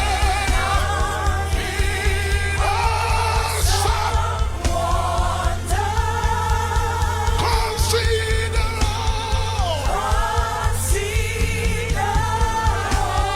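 Live gospel worship music: voices singing held, sliding melody lines over a band with a steady bass beat.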